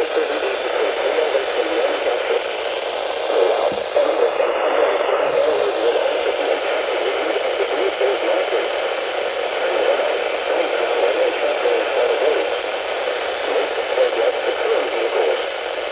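Radio static: a steady hiss and crackle from a poorly received broadcast signal, with no clear program audio coming through.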